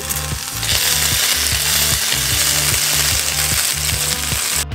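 Skewered sausages sizzling in a hot buttered grill pan as a honey-chilli sauce is brushed onto them with a silicone brush. The sizzle swells about half a second in and cuts off suddenly at the end.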